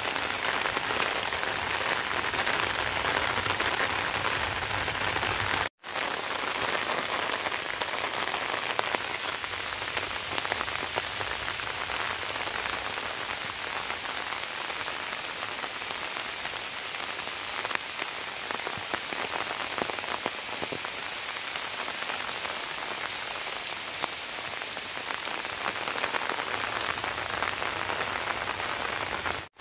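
Steady rain falling, a dense even hiss that drops out for an instant about six seconds in.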